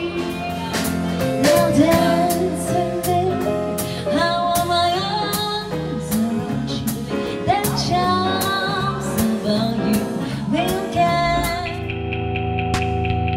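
Live band music: a woman singing a melody into a microphone, backed by a grand piano and a drum kit striking a steady beat. Near the end it gives way to held, sustained chords of a different piece of music.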